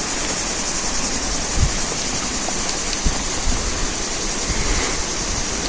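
Steady rushing of a mountain river, an even water noise with no breaks.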